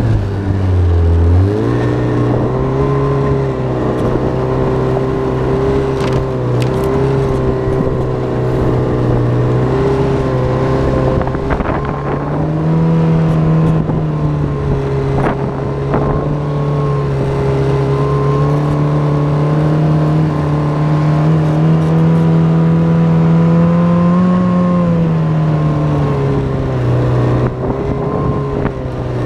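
Yamaha snowmobile engine running under way, heard from the rider's seat. Its pitch drops briefly about a second in, rises a little around halfway and falls back near the end as the throttle changes.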